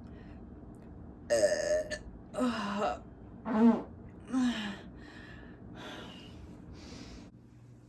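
A woman burping four times about a second apart, each burp short and loud, followed by two fainter breathy sounds near the end.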